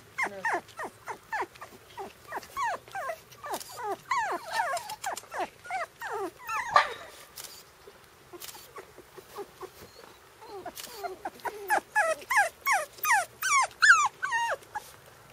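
Four-week-old Shiba Inu puppies crying in a quick run of short, high cries that fall in pitch, several a second. The cries thin out for a few seconds past the middle, then come thick again near the end.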